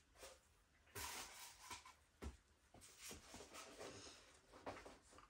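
Faint handling noise: rustling of packaging and a few soft knocks as resin statue parts are picked out and handled.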